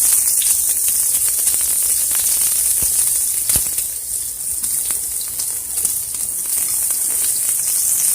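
Onions frying in hot oil in a pan: a steady sizzle with scattered small pops and crackles.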